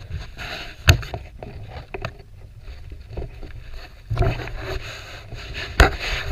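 Rustling and handling noise with a low rumble, broken by a few sharp knocks, the loudest near the end.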